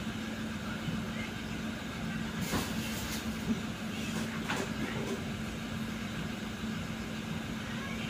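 Mt. Edma Tornado ceiling fan with three plastic blades running at speed, a steady low hum under café room noise. A few short clinks sound near the middle.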